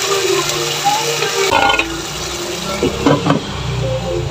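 Chicken pieces sizzling in their own juices in a nonstick frying pan while a spatula stirs them. A glass lid is set on the pan about a second and a half in.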